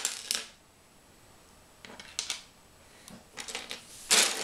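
Loose plastic Lego bricks clattering and clicking as a hand rummages through a pile of them, in several short bursts, the loudest near the end.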